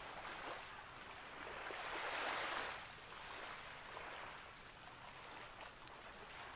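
Ocean waves washing in: one wave swells to a peak a little past two seconds in, then falls back to a softer wash.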